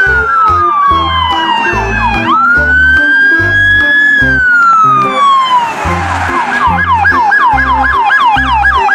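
Electronic police siren of a toy police car: a slow wail that falls, rises and falls again, then switches about six seconds in to a fast yelp of about four sweeps a second. Background music with a steady beat plays underneath.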